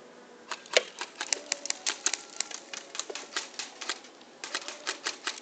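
Airsoft guns firing in an exchange of fire: rapid, irregular sharp cracks, several a second, in two volleys with a short lull between them about three and a half seconds in.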